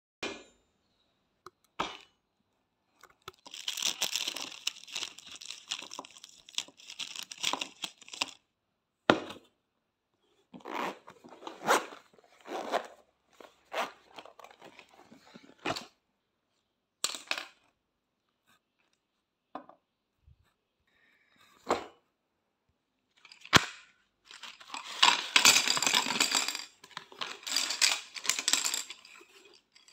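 Hands handling a zippered hard-shell pencil case, markers and drawing pencils on a glass tabletop: two long stretches of rustling, scraping noise with scattered sharp clicks and taps as things are set down.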